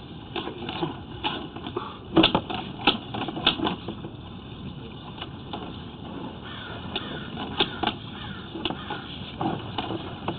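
Irregular clicks and knocks over a steady hiss, densest about two seconds in: a sewer inspection camera and its push cable knocking and scraping as they are pushed through a root-filled 4-inch drain pipe.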